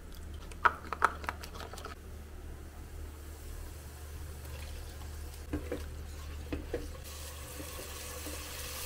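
Water poured into a glass bowl of ground spices, with a few sharp clinks against the glass about a second in. Later come a couple of light knocks, and a faint sizzle near the end as the spice paste fries in a pot.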